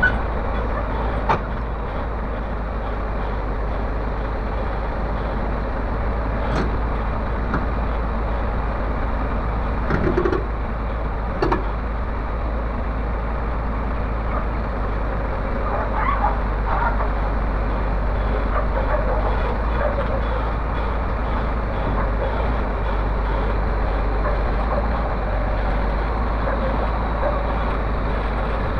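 Heavy diesel engine running steadily as a Komatsu PC300 excavator swings its upper body round on a low-loader trailer, with a few short knocks.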